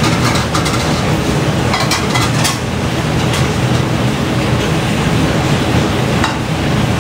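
Steady rushing noise of heavy rain, with a few light clinks of dishes and utensils being handled in the first few seconds and once near the end.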